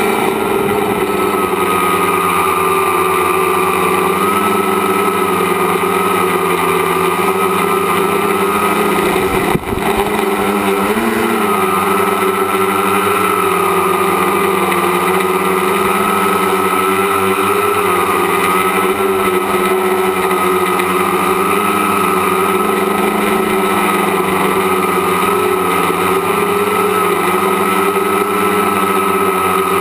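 Tricopter's motors and propellers whining steadily in flight, picked up by the onboard camera, the pitch wavering slightly with throttle. A brief click and dip in level about ten seconds in.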